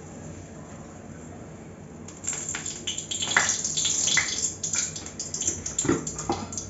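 Hot oil in an aluminium kadai starting to sizzle hard about two seconds in, as chopped onion goes in to fry, with irregular scrapes and clinks of stirring. Before that there is only a low steady hum.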